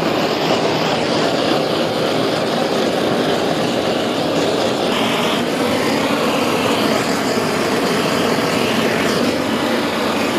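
Steady, loud rushing noise of a running machine, starting abruptly.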